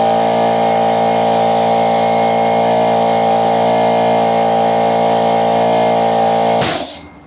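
Chinese piston air compressor running steadily under load, building pressure up to about 8 atmospheres now that its valves have been rebuilt. Near the end it cuts out with a short burst of hiss.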